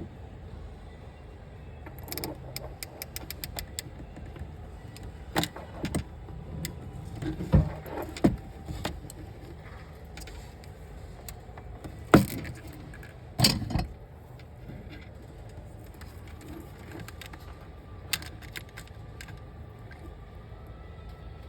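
Small metal clicks and clacks from handling a hand crimp tool and a Deutsch socket pin. A quick run of light clicks comes near the start, louder single clacks follow in the middle, and another short run of clicks comes near the end, over a low steady background hum.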